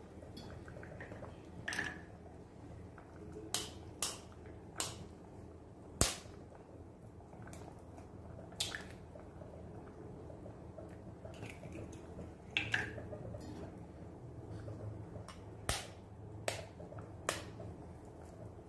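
Raw eggs being cracked open with a knife and broken into curry in a clay pot: a string of about ten sharp taps and cracks, spaced irregularly, the loudest about six seconds in.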